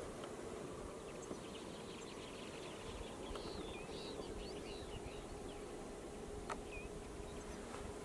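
Mixed winter flock of finches (linnets, greenfinches and goldfinches) perched on wires, giving short high twittering calls that cluster about three to four seconds in, with one more near the end, over a steady background noise and faint hum.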